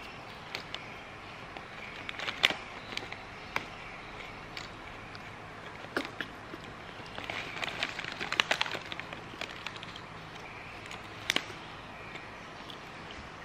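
Foil snack bag crinkling as it is handled, in short crackly bursts with scattered sharp clicks, busiest about seven to nine seconds in.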